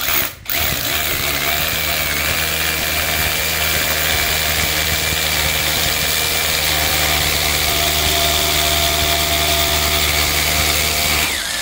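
Worx cordless mini rotary hammer hammer-drilling an 8 mm hole into concrete. It drops out briefly about half a second in, then runs steadily for about eleven seconds and stops near the end.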